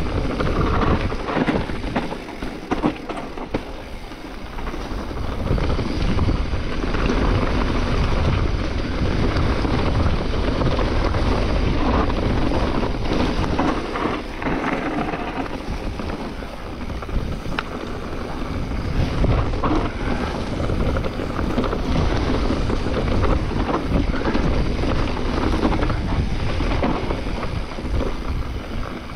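Wind buffeting an action camera's microphone as a mountain bike rides down a forest trail, with tyre noise on dirt and leaves and frequent rattling knocks from the bike over bumps.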